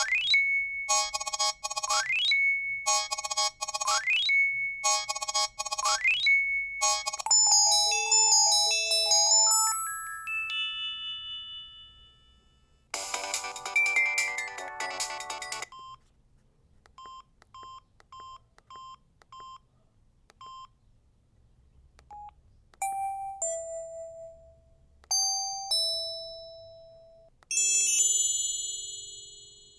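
Samsung SGH-C266 mobile phone playing a run of its built-in ringtones and alert tones one after another. First a ring with a quick rising sweep repeats about every two seconds, then come short electronic melodies, a dense chiming burst, a string of quick short beeps, and brief note alerts.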